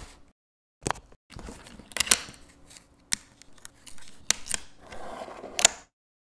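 A run of sharp clicks and snips mixed with short rustling noises, in several separate bursts, stopping dead about a second before the end.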